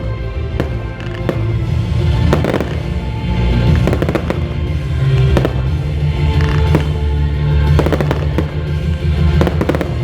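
Fireworks display: repeated sharp bangs and crackles from exploding shells, over loud music with a heavy bass.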